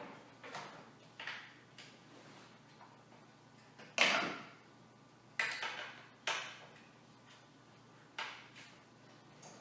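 Irregular clicks and knocks of office-chair parts being handled and fitted during assembly, with the loudest knock about four seconds in and two more soon after.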